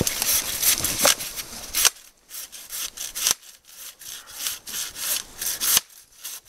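Hand pruning saw cutting through a branch of a felled tree in quick back-and-forth rasping strokes, about three a second, louder for the first two seconds.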